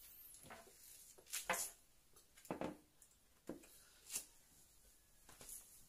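A small child eating: a handful of soft, separate mouth smacks and scrapes of a plastic fork in a takeout tray of spaghetti, with quiet between them.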